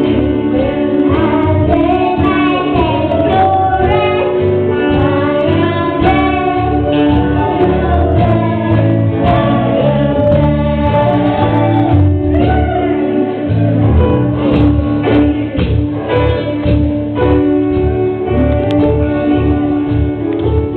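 Live gospel song: voices singing into microphones over amplified guitar and band accompaniment with a steady beat.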